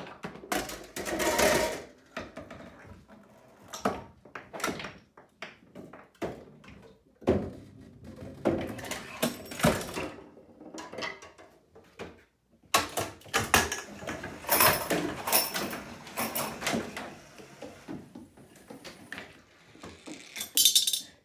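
Homemade Rube Goldberg chain-reaction machine running: a string of knocks, clacks and rattles as pieces of wood and metal, cans and rolling balls set one another off. It is busiest in the middle and ends with a quick rattle.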